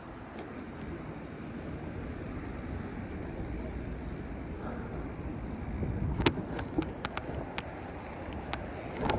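Wind buffeting the microphone and tyres hissing on a wet road while riding, a steady rushing noise. About two-thirds of the way through, a run of sharp irregular clicks and knocks sets in.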